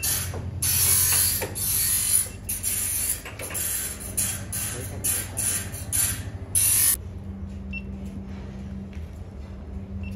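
Sawmill machinery running: a steady low motor hum under irregular rasping, hissing bursts, which stop abruptly about seven seconds in and leave only the hum.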